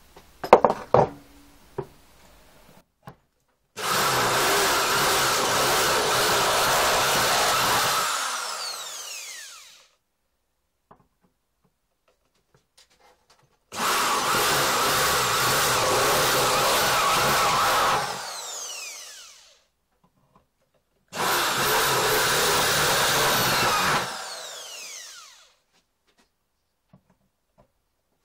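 A few sharp hammer taps, then a corded electric drill runs three times, about four seconds each, as holes are drilled through a metal motorcycle chain guard. After each run the motor spins down with a falling whine as the trigger is released.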